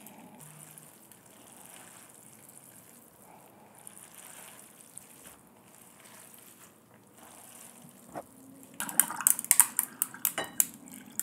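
Faint wet squelching of sauce-coated noodles being mixed by gloved hands in a steel bowl. About nine seconds in, water is poured from a bottle into a glass packed with ice, with a quick run of loud ice crackling and clinking.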